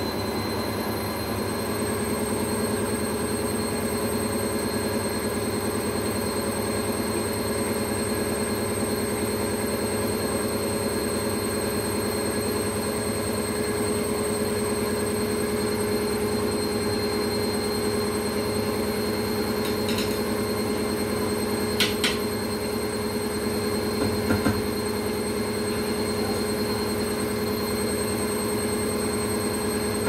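Indesit front-loading washing machine on a fast spin: the drum and motor run at speed with a steady rumble and a steady high whine. A few short knocks come about twenty to twenty-five seconds in.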